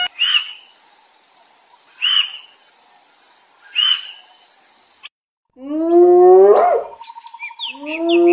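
Spotted hyena whooping: two loud calls about two seconds apart in the second half, each rising steeply in pitch. Before them come three short, high calls about two seconds apart.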